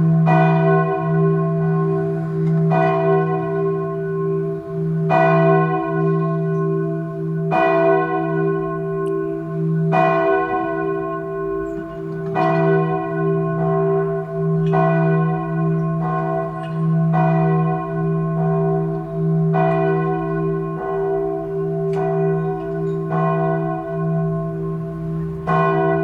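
A single church bell tolling, struck about every two and a half seconds, each stroke ringing on into the next over a steady low hum.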